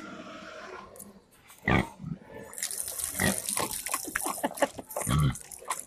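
A pig grunting as it drinks from a plastic water pipe. From about two and a half seconds in, water splashes steadily from the spout onto its snout.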